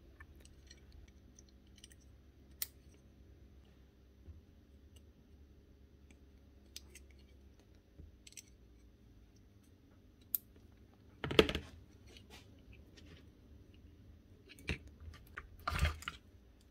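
Scattered light clicks and taps of small plastic parts and wire connectors being handled while a cordless hedge trimmer is taken apart, with two louder knocks about 11 and 16 seconds in.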